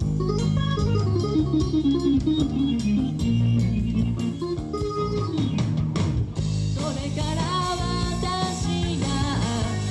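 Live J-rock band playing: drums, electric guitar and keyboard. A wavering lead melody comes in over the band about two-thirds of the way through.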